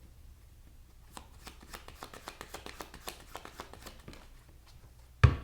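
Tarot cards being shuffled by hand, a quick run of light flicks and clicks, ending in one sharp knock a little before the end.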